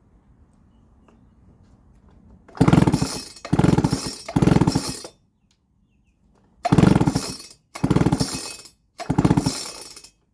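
Baumr-AG SX92 two-stroke chainsaw being pulled over on its recoil starter with the spark plug out, to check for spark. There are six short pulls, each with a rapid chugging of the engine turning over: three quick ones, a brief pause, then three more.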